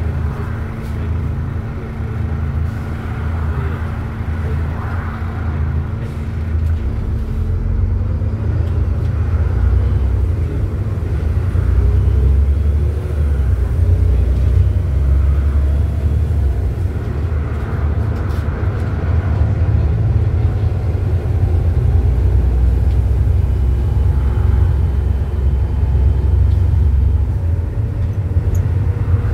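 Volvo B7TL bus's 7.3-litre D7C diesel engine and ZF six-speed automatic driveline heard from the upper deck while under way: a steady low rumble, growing louder about ten seconds in as it pulls, with faint rising whines above it.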